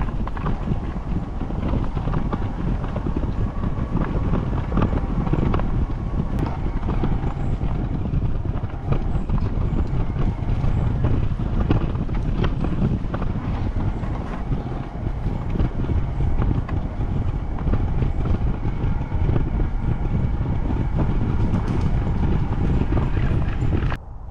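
Tramper all-terrain electric mobility scooter driving over a rough dirt and gravel track: a steady rumble from the tyres on the ground, with many small knocks from the bumps. It stops suddenly near the end.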